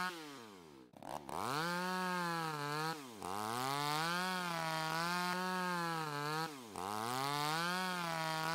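Electric carving knife buzzing as it cuts into a raw turkey. Three times its motor winds down almost to a stop and spins back up, as the trigger is let go and pressed again.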